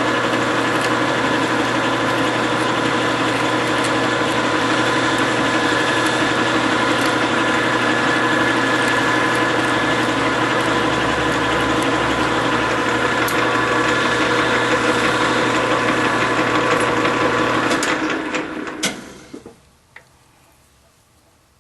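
Grizzly G4003 metal lathe running under power on a thread-cutting pass, a steady hum and whine of motor and gear train. It is shut off about 18 seconds in and winds down, followed by a few light clicks.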